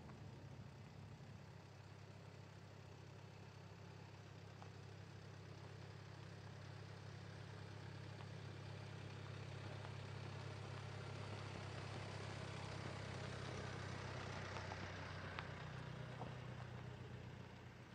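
A steady, faint low engine hum, with a hiss that swells over the middle and eases off near the end.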